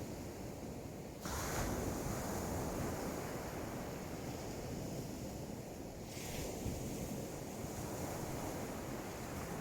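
Sea waves washing onto the beach, with wind rumbling on the microphone. A louder surge of surf comes about a second in, and another rush of water around six seconds in.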